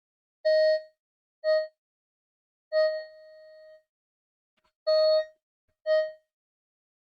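Commodore 64 SID sound chip playing a test-cartridge tone sequence: five synthesized beeps on one pitch. Most are short; the third falls to a quieter held note for about a second. These are envelope tests, and the owner judges that the chip's filters and envelopes are starting to go bad.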